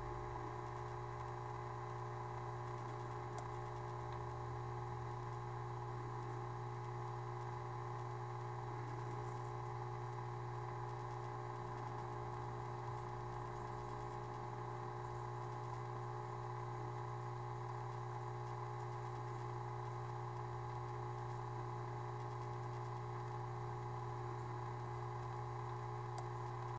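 Steady low hum of running aquarium equipment, with several faint steady higher tones over it and a couple of faint clicks.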